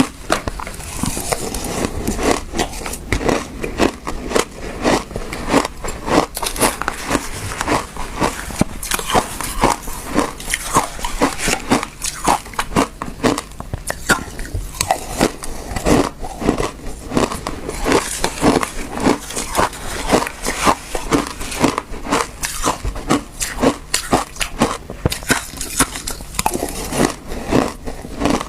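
Close-up biting and chewing of frozen passion fruit ice: sharp, irregular crunches, several a second, with no pause.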